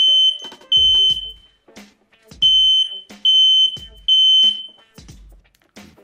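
Kidde ceiling smoke alarm sounding under test, its test button pressed: loud, high-pitched beeps in the temporal-three pattern, the end of one group of three, a pause of about a second, then a full group of three. Background music with a soft steady beat runs underneath.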